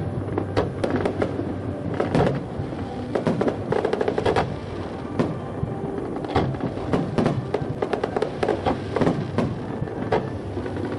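Aerial fireworks display: shells bursting and crackling in a rapid, irregular series of sharp bangs, several a second, over a continuous rumble.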